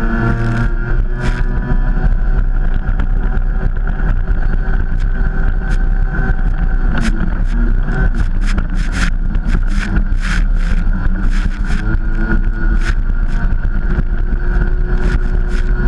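Stand-up jet ski engine running at speed, its pitch wavering a little with the throttle, with wind on the handlebar-mounted microphone. Repeated sharp slaps and splashes come through as the craft rides over chop, thicker in the second half.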